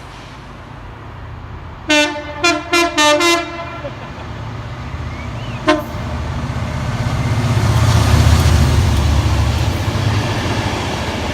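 Train horn sounded in four quick short blasts, then one brief toot a few seconds later. A low rumble and rushing noise of the train passing then builds and grows loud.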